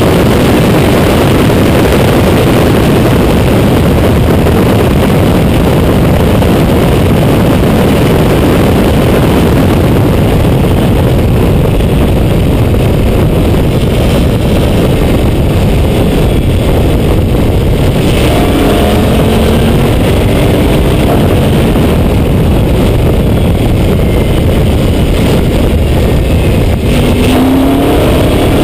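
Open-cockpit Oreca Formula Le Mans prototype at racing speed, heard from an onboard camera. Its engine runs under heavy, steady wind buffeting on the microphone. The engine note rises in pitch a few times in the second half.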